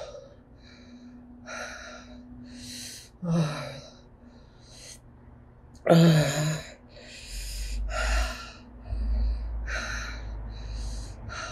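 A woman breathing hard through her open mouth against the burn of Carolina Reaper chillies: hissing breaths about once a second, two of them voiced gasps about three and six seconds in, the second the loudest.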